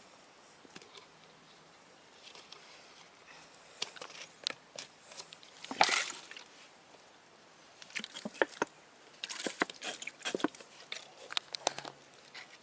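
Fire burning in a metal barrel, with scattered irregular crackles and snaps; a louder crackle comes about six seconds in, and they come more often near the end.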